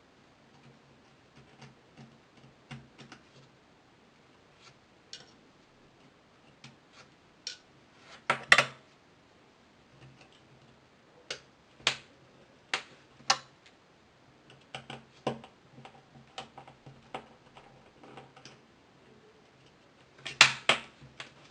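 Small hand tools and phone parts clicking and tapping against each other and a work surface during a phone screen repair: scattered sharp clicks, with louder clusters about eight seconds in and near the end.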